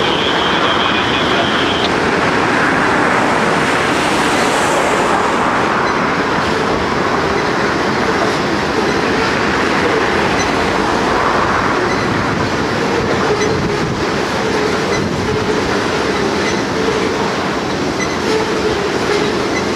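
Tank cars of a freight train rolling past, with a steady noise of steel wheels on rails. A thin high squeal is heard for the first two seconds.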